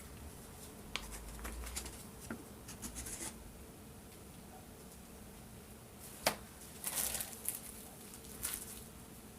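Quiet handling noises of plastic paint cups and tools on a canvas: scattered light clicks, taps and scratchy rustles in small clusters, with one sharper click about six seconds in.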